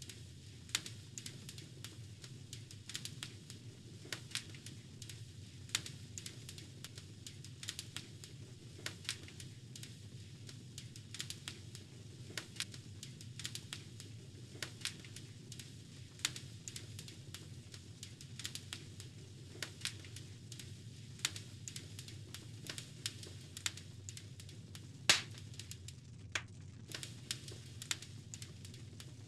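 Wood logs burning in a fireplace, crackling with irregular sharp pops over a steady low rumble of flame; one louder pop near the end.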